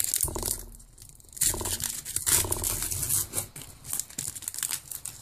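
Foil booster pack wrapper of a Pokémon card pack being torn open and crinkled by hand: a run of crackly rips, with a short lull about a second in.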